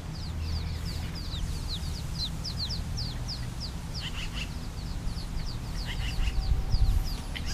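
A bird calling in a rapid series of short, high, falling chirps, about three or four a second, thinning out after the first few seconds, over a steady low rumble.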